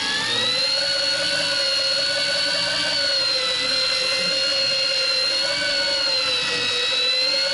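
Electric fishing reel's motor winding in line on auto with a fish hooked, a steady whine that rises in pitch over about the first second, then holds with slight wavering.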